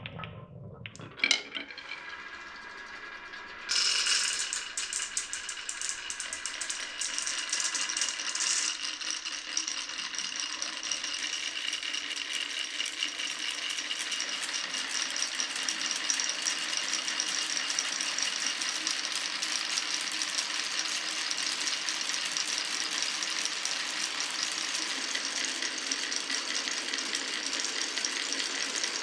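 Glass marbles rolling and clattering through a wooden and plastic marble run. A single sharp click comes about a second in, and from about four seconds a dense, steady rattle of many marbles runs over the track.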